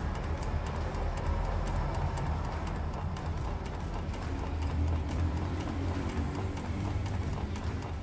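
Light irregular clicking and knocking from a Volkswagen Amarok's steering box in its mounting as the steering wheel is worked back and forth, over a low steady drone. The knocks come from play in the steering box and its mount bushings.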